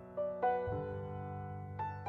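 Solo piano playing a slow melody: a few notes struck in the first second, a low bass note about 0.7 s in and another note near the end, each left to ring.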